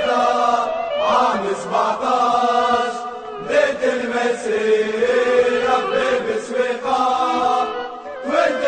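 A large crowd of football ultras chanting a song in unison, in long held phrases with short breaks between them.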